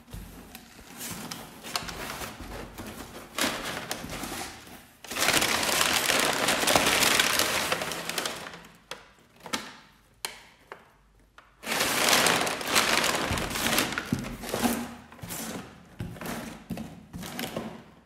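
A cardboard box being opened by hand: crinkling and knocking of the cardboard, with two loud stretches of ripping noise, each two to three seconds long, about five and about twelve seconds in.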